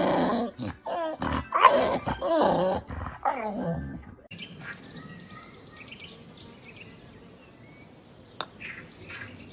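A dog vocalizing in a string of loud, wavering grumbles and whines for about four seconds, as an upset dog does when it "talks back". After that it goes quieter, with only faint high chirps.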